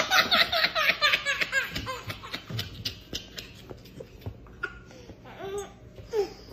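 A baby laughing: a rapid run of high-pitched giggles for about two seconds, then a few short, fainter sounds.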